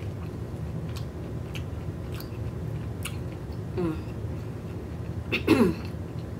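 Close-up mouth sounds of a person chewing oysters with lips closed, with a few wet clicks spaced about half a second apart. About four seconds in comes a short hum, and about five and a half seconds in a louder vocal sound falling in pitch. A steady low hum lies underneath.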